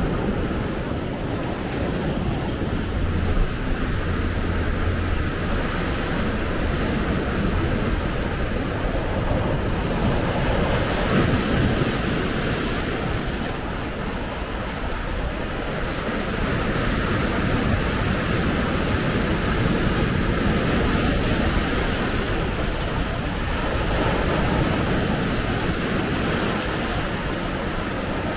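Surf breaking and washing in over a rocky, weed-covered shore: a steady rush of small waves that swells and eases every few seconds.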